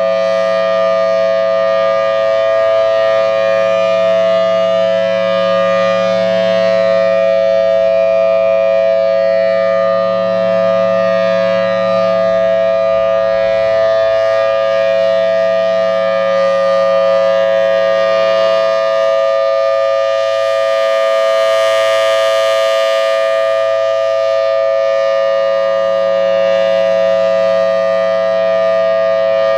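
Federal Signal Thunderbolt 1000T outdoor warning siren sounding its steady alert: a loud, unbroken two-tone chord. A brief rise of hiss comes about 21 seconds in.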